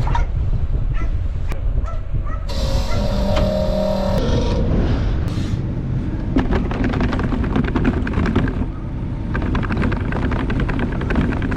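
Vehicle running with a steady low rumble; about two and a half seconds in a brief rush of noise with a faint steady tone passes, and in the second half a fast run of clicks and rattles rides over the rumble.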